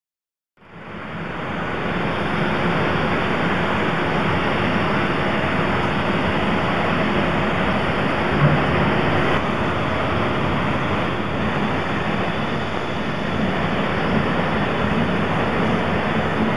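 Steady hiss of escaping steam from a 2-8-0 steam locomotive, with no chuffing rhythm; it fades in about half a second in.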